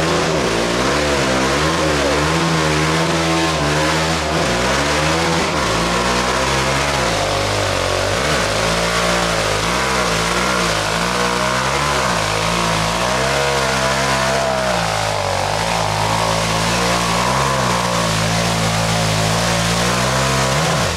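ATV engine running hard, its pitch rising and falling over and over as the throttle is worked, with a constant rush of noise over it.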